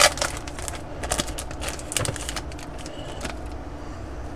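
Crinkling and rustling of a Magic: The Gathering booster pack wrapper and cards being handled as the pack is opened: a quick run of short crackles that thins out after about two and a half seconds.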